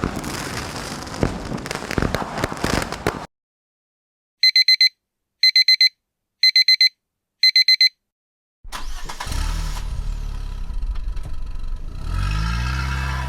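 A run of sound effects: about three seconds of dense crackling clatter that cuts off, then a digital alarm clock beeping in four groups of four quick beeps, then a car engine running and revving, its pitch rising near the end.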